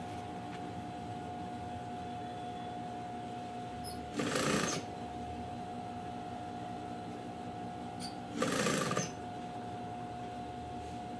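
Sewing machine stitching in two short runs, about four and eight and a half seconds in, sewing fabric strips together. Between the runs a steady hum with a faint whine continues.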